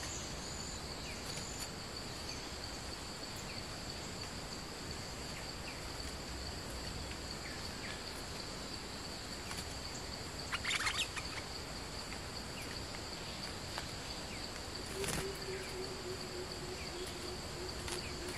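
A steady insect drone, a high two-pitched buzz, runs under short bird calls from bulbuls, the loudest a quick cluster of chirps about halfway through. A low steady hum joins after a click some three-quarters of the way in.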